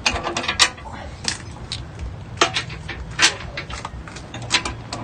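Scattered, irregular metallic clicks and knocks of bolts, washers and tools being handled, over a steady low rumble.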